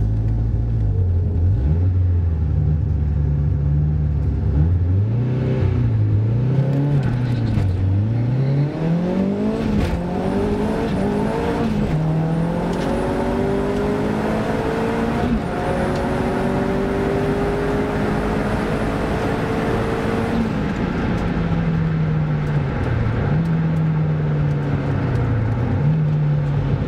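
A race-prepared car's engine heard from inside the cabin. It runs unevenly at low revs at first, then accelerates hard through the gears, the pitch climbing in each gear and dropping at each of three quick upshifts. A faint high whistle sits above it during the pull. Near the end the driver lifts off and the engine falls back to a low rumble with a couple of throttle blips.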